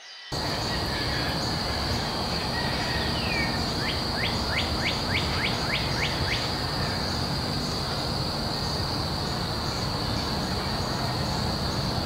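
Outdoor ambience: a steady high-pitched insect drone over a low background rumble, with a bird calling a quick series of about nine short falling notes about four seconds in.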